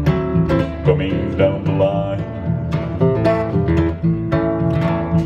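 Acoustic guitar and acoustic bass guitar playing an instrumental passage together, with plucked notes over a walking bass line.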